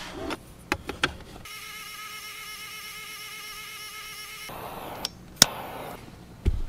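Handheld 3D pen's filament-feed motor whirring steadily for about three seconds as it extrudes plastic. A few sharp clicks and knocks come before and after it, the loudest just after the motor stops.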